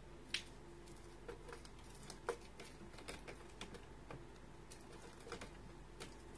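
Faint, irregular taps and clicks as a kitten scrambles and climbs about a plush-covered cat tree with sisal posts, the sharpest about a third of a second in and again a couple of seconds later.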